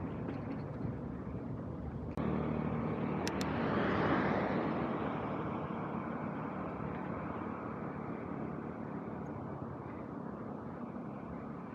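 Street traffic heard during a ride: a steady engine hum, with a vehicle swelling past close by about four seconds in and then fading.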